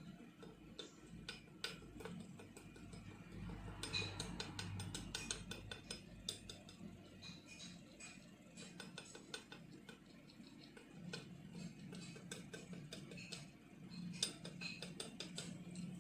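Faint clicking and clinking of kitchen utensils against bowls and dishes while ingredients are handled, in quick runs of small ticks, busiest a few seconds in and again near the end.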